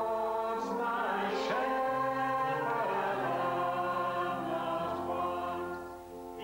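A church congregation singing a hymn together in long held notes. The singing dips in level near the end.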